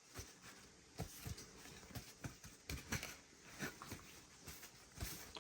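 Faint, irregular light taps and rubbing as a wet-sanded model car body is handled and dried off.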